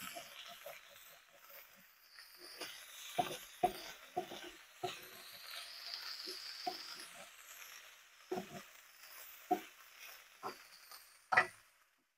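Herb garlic chicken pieces sizzling in a skillet as they crisp, a steady hiss broken by scattered pops and light knocks; near the end a spoon clanks against the pasta pot.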